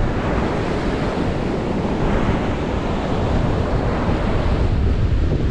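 Ocean surf washing in steadily, with wind buffeting the microphone in a low rumble.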